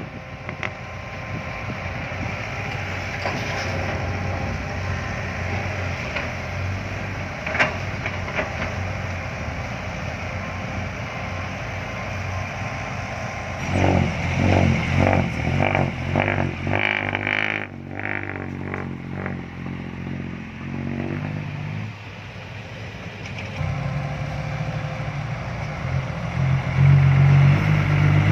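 Heavy truck diesel engine running, with a stretch of uneven, pulsing revving about halfway through and the engine growing louder toward the end. There is one sharp knock about a third of the way in.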